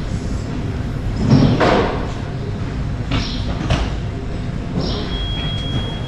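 Airport terminal hall ambience: a steady low rumble, a louder rush about one and a half seconds in, and a couple of short knocks around three seconds in.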